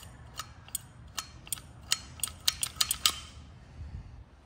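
Repaired recoil starter of a 1950s Sears and Roebuck gear-drive chainsaw being worked by its pull handle, giving a string of sharp ratcheting clicks from the pulley and starter dogs. The clicks come quicker and then stop about three seconds in. The dogs are now coming out on every pull.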